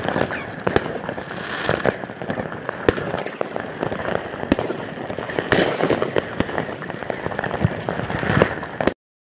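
New Year's Eve fireworks and firecrackers going off all around: a dense, irregular run of bangs and crackling. The sound cuts off suddenly near the end.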